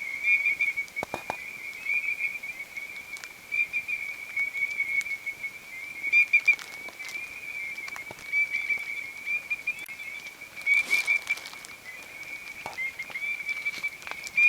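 Steady, high-pitched warbling trill that runs without a break, with a few faint clicks and a short rustle about eleven seconds in.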